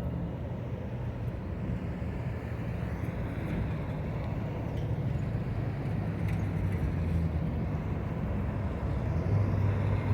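Street traffic: car and truck engines running with tyre noise, a steady low hum.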